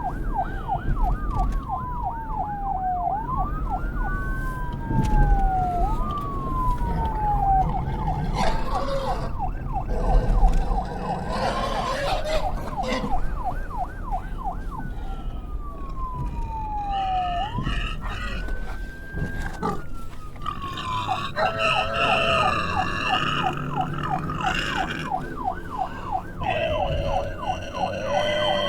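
Electronic police siren switching between a slow wail that rises and falls over a few seconds and a rapid yelp, overlapping itself. In the second half other pitched, squealing sounds are layered over the yelp.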